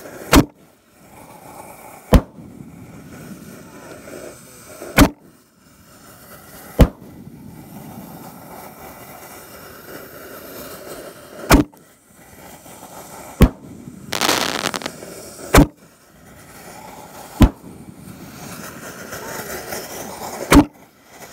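A rack of Raccoon Fireworks extra large 5-inch canister shells firing in sequence: about nine sharp, loud booms roughly two seconds apart, with a softer wash of sound between them. About two thirds of the way through there is a burst of hiss lasting about a second.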